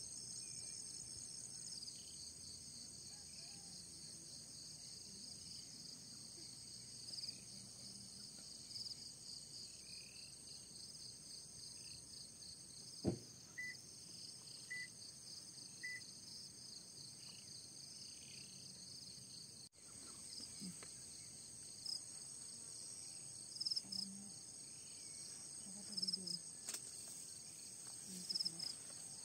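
Insects, crickets among them, trilling steadily in chorus: several high unbroken tones over a fast pulsing one. A single sharp click comes about thirteen seconds in, followed by three short high chirps.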